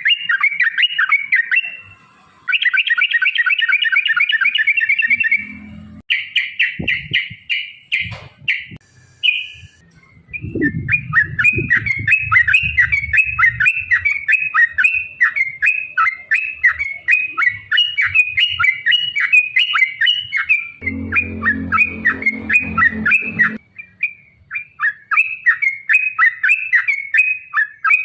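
Yellow-vented bulbuls singing long rapid rolls of sharp chirps, one series running into the next with a brief pause about nine seconds in. A low rumble sits under the song twice.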